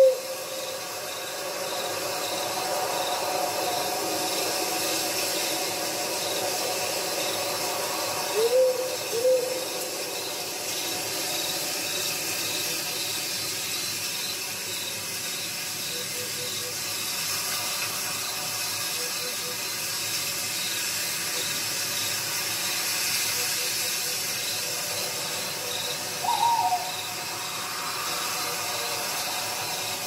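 Owl hooting in a night forest: a call right at the start, a short double hoot about nine seconds in, and a higher call near the end, over a steady hiss of background ambience.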